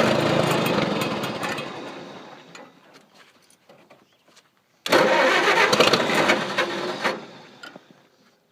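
An engine being cranked over twice without starting: the first attempt runs on from before and trails off over about three seconds, and the second starts about five seconds in and lasts about two seconds.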